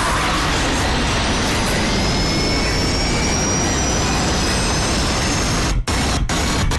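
Film sound effect of an airliner crashing: a loud, steady rush of air and jet engine noise with a faint high whine slowly rising in pitch. The sound drops out abruptly for split seconds three times near the end.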